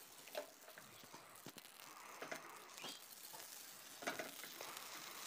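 Faint stirring of amaranth seeds dry-roasting in a steel wok: a spoon scraping the pan, with scattered small ticks and crackles. It is a little louder about four seconds in.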